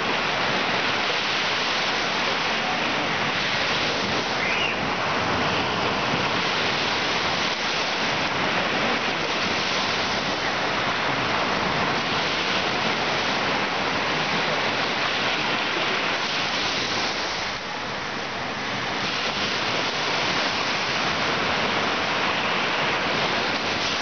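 Baltic Sea surf: small waves breaking and washing up a sandy shore in a steady hiss, easing off briefly about three-quarters of the way through.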